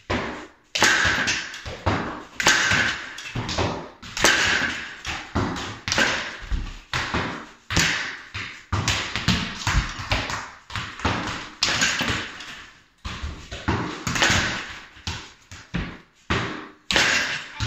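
Soccer balls kicked against a rebounder net and bouncing back onto a hardwood floor. A string of sharp thuds comes roughly once a second throughout.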